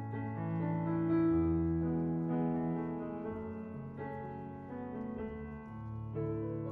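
Background piano music, a slow melody of held notes over a sustained bass.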